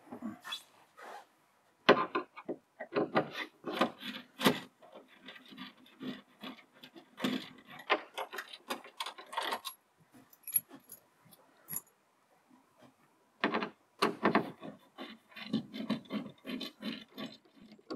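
Hand screwdriver backing screws out of a plywood ceiling panel: rapid clicking and scraping of the bit in the screw heads and wood, in three spells with short pauses between.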